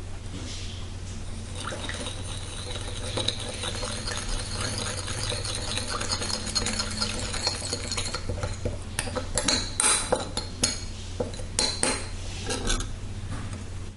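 Metal spoon stirring a thin soy-sauce dressing in a ceramic bowl, scraping and tapping against the bowl. The clinks grow sharper and louder about two-thirds of the way through.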